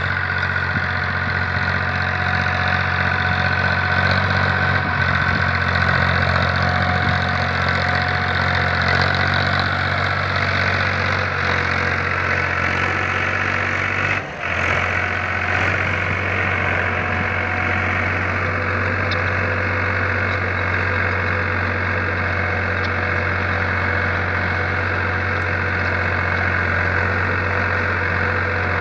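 Powertrac Euro 47 tractor's diesel engine running steadily while pulling a mouldboard plough, with a brief dip about halfway through.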